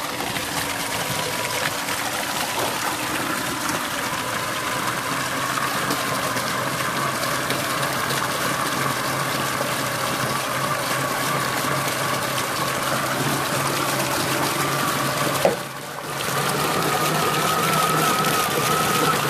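A 3D-printed RC snow blower's electric motor and Traxxas-differential gearbox whine steadily while its auger pumps water out through the chute, and the jet gushes and splashes into a plastic tub. The sound dips briefly about three-quarters of the way through, then carries on.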